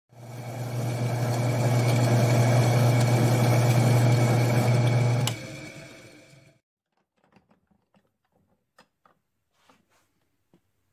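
Benchtop drill press spinning a wire wheel while a small steel part is held against it: a steady low motor hum under the hiss and scratch of the wire brushing. About five seconds in the motor cuts off and the wheel coasts down over a second or so, leaving only a few faint clicks.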